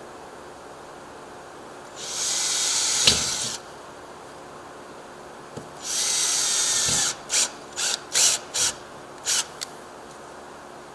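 Power drill running a 1/8-inch pilot bit into a storm door: two runs of about a second and a half each, the second followed by five short trigger blips.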